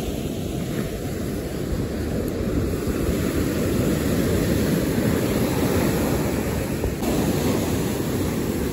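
Ocean surf breaking and washing up a sandy beach: a steady rush that grows a little louder around the middle, with wind buffeting the microphone.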